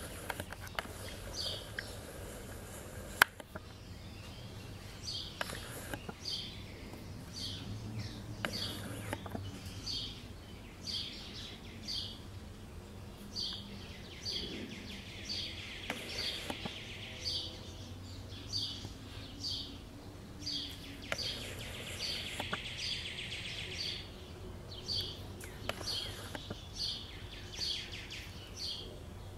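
Female northern cardinal giving short, sharp chip calls, repeated about once or twice a second, over a steady low background rumble. A single sharp click sounds about three seconds in.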